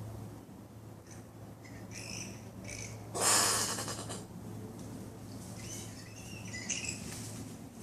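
Common brushtail possum calls: short high chirps, then a loud harsh hiss about a second long just after three seconds in, and more chirps near the end.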